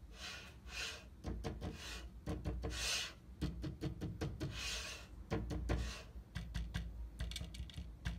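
Voron 1.5 3D printer gantry slid back and forth by hand along its steel guide rods. Its linear bearings give repeated rubbing swishes with scattered clicks, a crunchy, sticky motion as the gantry is worked into alignment.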